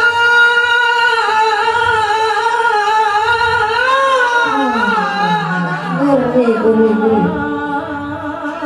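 Women singing a yalil, a long melismatic devotional chant, unaccompanied through microphones. One long held line wavers in ornamented turns, then falls to a lower pitch about halfway through.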